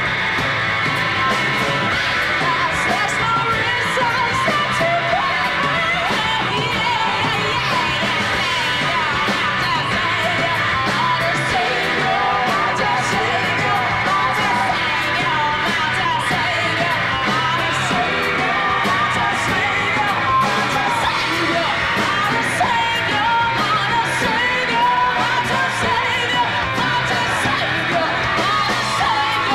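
Live rock band: a woman singing into a microphone over electric guitar, electric bass and drums, with cymbals ticking through.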